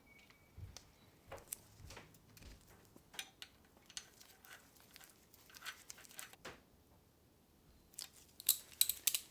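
Scattered light clicks and taps of small hand tools and metal parts being handled, with a quick run of sharper clicks near the end.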